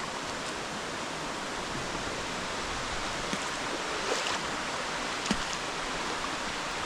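Steady rush of water falling and running at a waterfall's pool, with a couple of faint short clicks about four and five seconds in.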